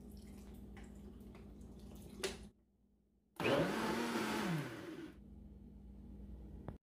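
Countertop blender blending cilantro, green onions and water into a green sauce. The motor spins up with a whine, runs for under two seconds and winds down, and a short knock comes just before it.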